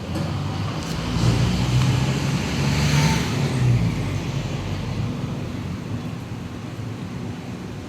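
Road traffic: a motor vehicle's engine and tyre noise swell to a peak about three seconds in, then fade as it passes.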